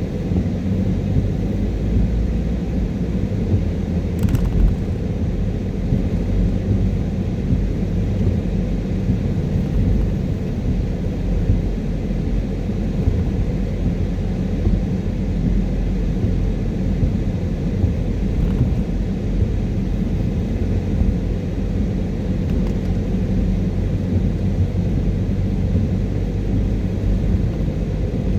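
Car driving in the rain: a steady low rumble of tyre and road noise, with a short click about four seconds in.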